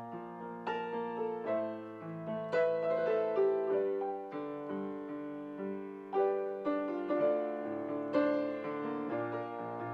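Solo piano playing a delicate classical-style piece in D minor: simple lines intertwining, each note struck and left to ring over held notes.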